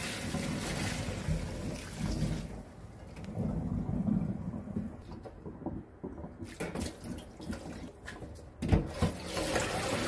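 Hot water and blanched bean sprouts poured from a pot into a metal colander in a stainless-steel sink, the water rushing and splashing down the drain. Near the end come scattered clanks of metal bowls and colander, then water rushing again as the sprouts are rinsed.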